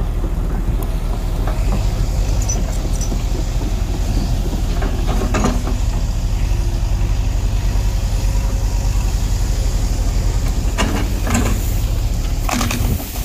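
JCB 140 tracked excavator's diesel engine running steadily as the machine digs, with a few short sharp noises about five seconds in, around eleven seconds in and near the end.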